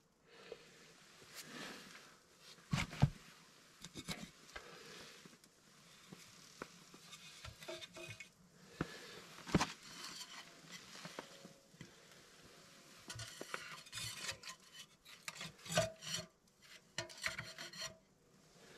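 Split cedar kindling being laid into a small steel tent wood stove's firebox. The sticks scrape and knock against one another and the metal at irregular intervals, with a few sharper knocks standing out.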